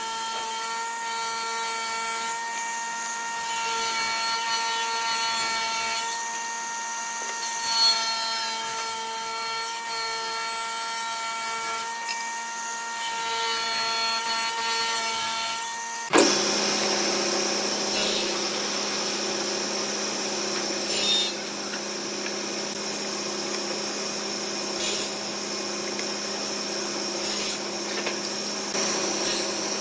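Table saw running with a steady whine from its spinning circular blade while wooden strips are ripped along the fence, the cutting noise swelling as each piece feeds through. About 16 seconds in the sound changes abruptly to a table saw cutting through a plywood panel, with a few sharp knocks.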